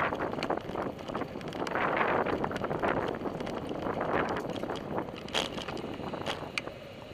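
Wind buffeting the microphone of a camera on a moving bicycle, in uneven gusts, with a few sharp clicks or rattles in the second half. The wind noise eases off near the end.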